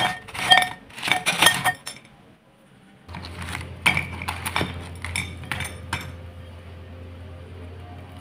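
Clinks of a glass dish knocking against a ceramic plate as crispy fried bananas are tipped out, in the first two seconds. From about three seconds in, lighter crisp clicks and taps as fingers pick up and handle the fried bananas on the plate, over a steady low hum.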